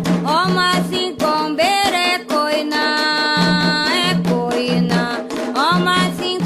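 Candomblé ponto for Xangô: a voice singing with gliding, ornamented pitches over steady hand drumming and percussion.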